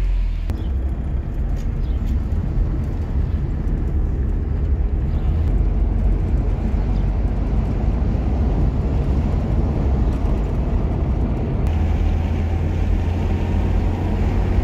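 Steady engine and road noise from inside a moving car, with a heavy low rumble that grows stronger about twelve seconds in.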